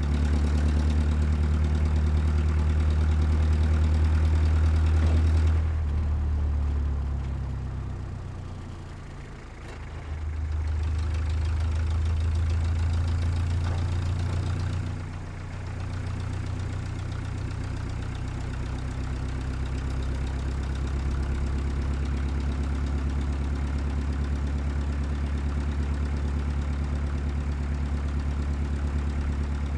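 Heavy construction machine's diesel engine running with a steady low hum. It fades down about eight seconds in, comes back, dips briefly near the middle and then runs evenly.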